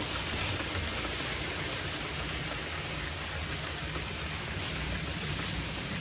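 Model trains running on a layout: a steady hiss with a low rumble underneath.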